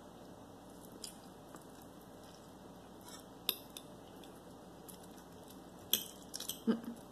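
Metal fork clinking against a ceramic plate while lifting and twirling noodles: a few sharp clicks, then a quick cluster of clinks near the end.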